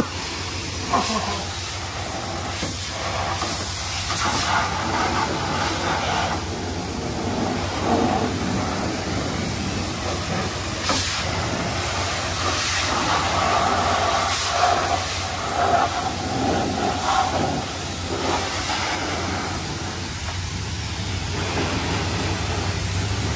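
Self-serve car wash's high-pressure wand spraying water onto a mud-caked engine bay: a steady hiss of spray and spatter, its tone shifting as the jet moves across different surfaces.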